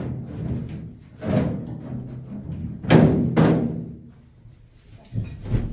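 Music with several loud, sudden thuds that ring out briefly.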